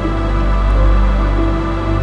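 Background music: slow, held ambient notes over a deep, steady bass.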